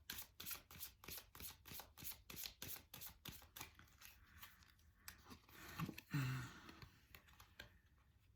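A deck of tarot cards being shuffled: a quick run of soft flicking clicks for about four seconds, then a brief murmur of voice a little later.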